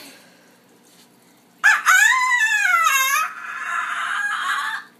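A single rooster crow, cock-a-doodle-doo: one loud call rising and then falling in pitch, starting about one and a half seconds in and trailing off into a rough, drawn-out ending.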